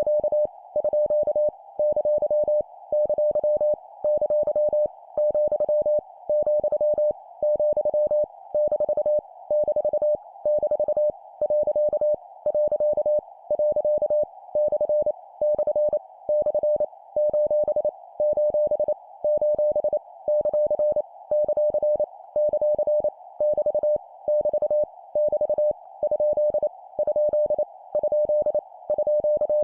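Morse code (CW) at 25 words per minute: a single steady beep keyed on and off into dots and dashes, sending punctuation characters each three times in a row. A soft hiss sits behind the tone in the gaps.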